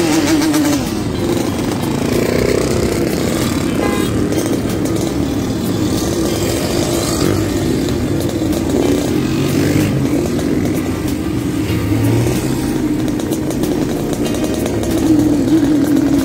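Many small motorcycles and scooters running and riding past in a group, their engines a steady mixed noise.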